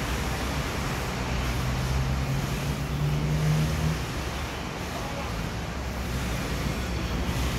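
Diesel engine running steadily beside a standing train, a low hum that swells slightly for a couple of seconds midway and then settles.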